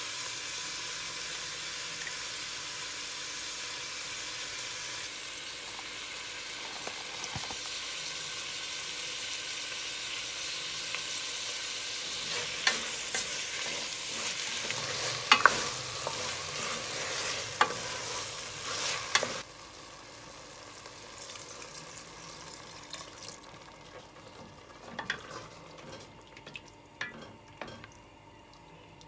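Cherry tomatoes, olives and capers sizzling in oil in a stainless steel pot, with a wooden spoon stirring and knocking against the pot. The sizzle drops off suddenly about two-thirds of the way through, leaving a quieter sizzle and occasional spoon knocks.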